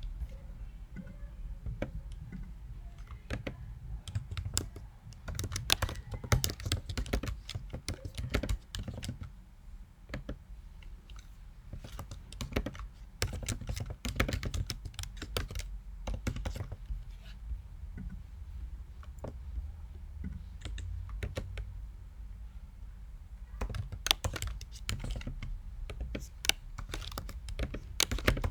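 Typing on a computer keyboard in irregular runs of keystrokes with short pauses between them, over a low steady hum.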